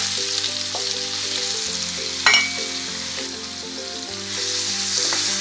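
Paneer cubes sizzling as they shallow-fry in hot oil in a frying pan while being stirred and turned. About two seconds in, a utensil clinks once against the pan.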